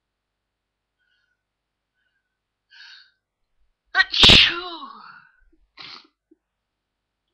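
A person sneezes once, loudly and suddenly about four seconds in, the voiced part of the sneeze falling in pitch as it fades. It is preceded by a short, faint breath and followed by another brief breath.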